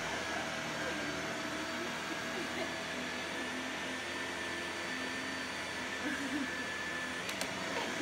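Upright vacuum cleaner running steadily on carpet: an even motor rush with a thin high whine.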